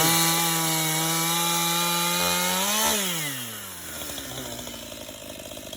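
Stihl MS 181 C-BE two-stroke chainsaw held at high revs for nearly three seconds, then the throttle is released and it falls back to a low idle.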